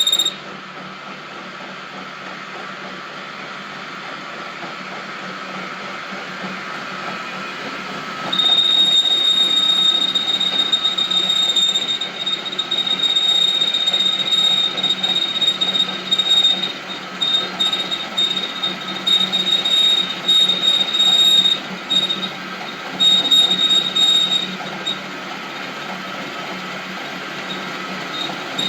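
Metal lathe running with a steady hum while turning metal. A high-pitched squeal from the cutting tool starts about eight seconds in, holds steady for several seconds, then comes and goes in short stretches through the second half.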